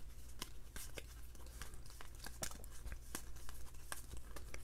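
Stack of glossy foil football trading cards (Panini Unparalleled) flipped through one card after another by hand, each card giving a sharp flick or snap, about three a second in an uneven rhythm.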